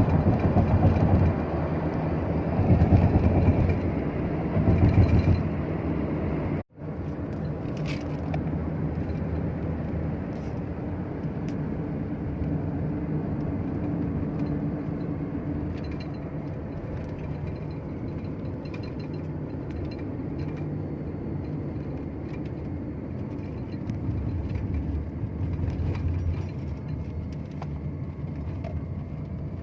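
Steady low rumble of a vehicle running, louder for the first few seconds, with the sound cutting out for an instant about seven seconds in.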